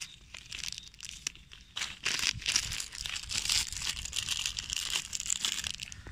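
Clear plastic bag crinkling as hands handle it and slip it down over a freshly grafted mango stem. A few faint clicks come first; about two seconds in, the crinkling turns loud and dense for some three seconds.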